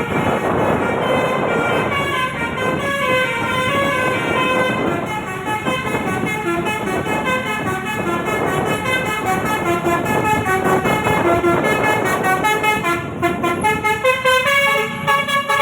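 A bus's telolet horn, a multi-tone musical air horn, playing a tune of quickly changing notes with several tones sounding together, over engine and road noise.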